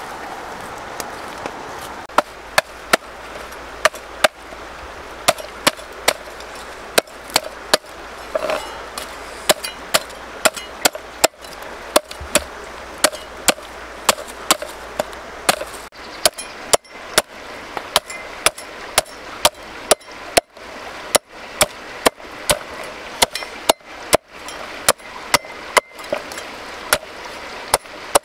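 Cleaver chopping a cooked goose, bone and meat, on a round wooden chopping block: a steady run of sharp chops, about two a second, starting about two seconds in.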